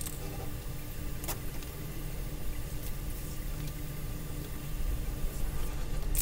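A steady low motor hum, with one sharp click about a second in.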